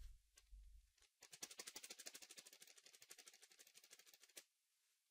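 Faint, rapid typing on a computer keyboard: a quick, even run of key clicks, about ten a second, starting about a second in and stopping after some three seconds.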